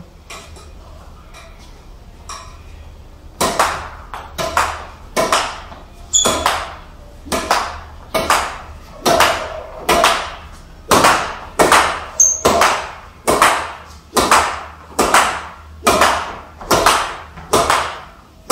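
Badminton racket hitting a shuttlecock in a solo rally against a wall, with the shuttle's knocks on the wall in between. Sharp hits start about three seconds in and come steadily about every half second, often in close pairs, each ringing briefly in the room.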